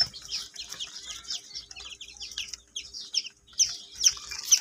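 A crowd of newly hatched chicks peeping: many short, high, falling cheeps overlapping one another, growing thicker and louder near the end.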